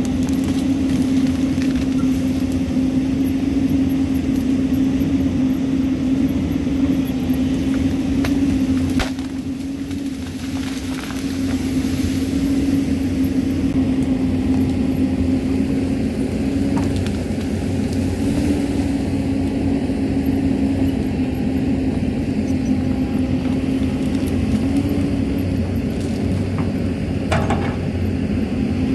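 Hyundai crawler excavator's diesel engine running steadily as the machine digs into the hillside, a strong even drone that drops in level briefly about nine seconds in. A few brief knocks come from the working machine.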